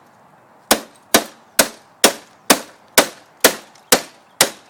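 Nine sharp, evenly spaced blows on a printer at one of its screws, about two a second, each ringing out briefly.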